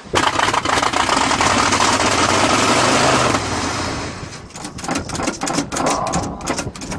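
Cold 400 small-block V8 in a 1977 GMC pickup catching and running roughly on a primed carburetor. About three and a half seconds in it falls off into uneven pops and misses as it struggles to stay running. The carburetor does not like the cold.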